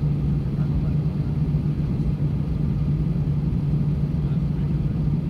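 Steady low hum inside the cabin of an Airbus A320 standing on the ground, an unbroken drone from the aircraft's engines or air systems.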